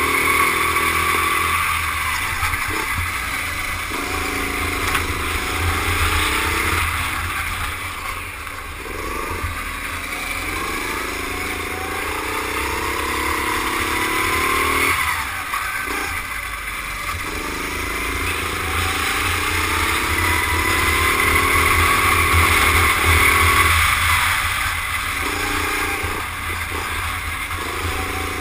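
Rental go-kart engine heard onboard at racing speed, its pitch climbing steadily as it accelerates down each straight, then falling away briefly about four times as the throttle is lifted for corners. A steady low rumble runs beneath.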